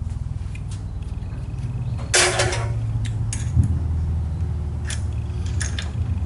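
Metalworking lathe running with a steady low hum, with several sharp metallic clicks and a brief clattering rattle about two seconds in.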